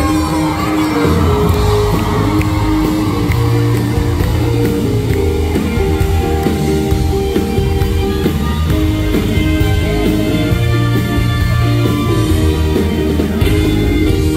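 A live band with mariachi trumpets, violins and guitars over drums and keyboard plays a pop song, recorded from among the audience.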